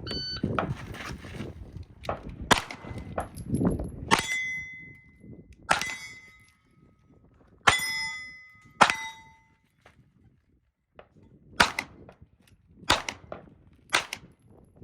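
A shot timer beeps, then a Glock 19 9mm pistol fires a string of single shots a second or two apart, several of them followed by the ringing clang of a hit steel plate.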